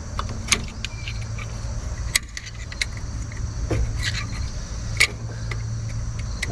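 Scattered sharp metallic clicks and taps, about five, as brake pads and their steel abutment clips are handled and pushed into a caliper bracket. A steady low hum and a steady high-pitched buzz run underneath.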